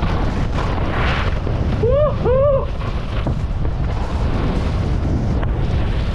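Wind buffeting a helmet camera's microphone, with skis running over snow, during a fast ski descent. About two seconds in come two short rising-and-falling whoops, one right after the other.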